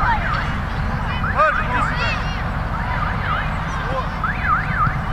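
Wind rumbling on the microphone, with distant shouts from young players on a football pitch. Through it, repeated quick up-and-down whistled notes come in groups of two or three.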